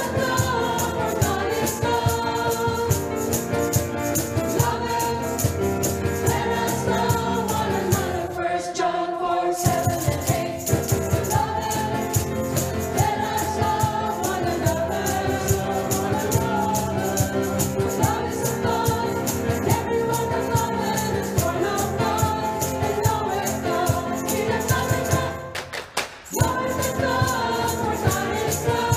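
Church choir of men's and women's voices singing with electronic keyboard accompaniment and a steady rattling percussion. The music drops away briefly twice, about nine seconds in and near the end, between phrases.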